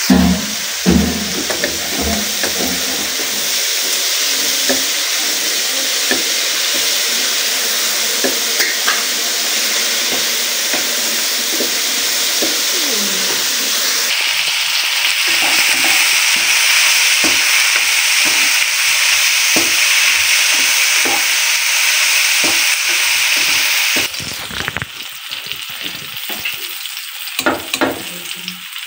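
Sliced green bell pepper and onion sizzling in hot oil in a non-stick wok, stirred with a wooden spatula that scrapes and knocks against the pan. About 24 seconds in the sizzle drops much quieter, with a few knocks near the end.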